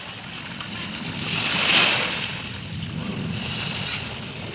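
Small sea waves washing onto the beach, one wash swelling to a peak about two seconds in and then easing off.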